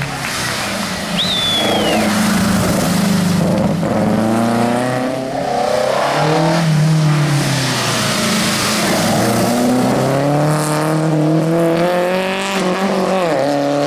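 Classic rally car engines revving hard as the cars pass, the pitch climbing through each gear and dropping at the changes and lifts. A short, high, falling squeal comes about a second in.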